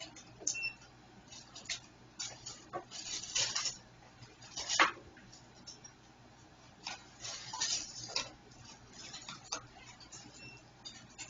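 Irregular clicks, clatter and rustling of small objects being handled, with a few very brief faint high-pitched tones.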